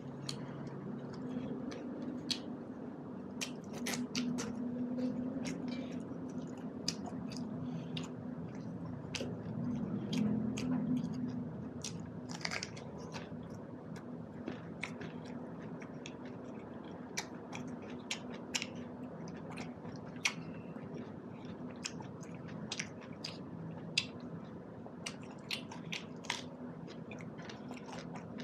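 A man chewing food close to the microphone, with frequent short wet mouth clicks and lip smacks, over a low steady hum.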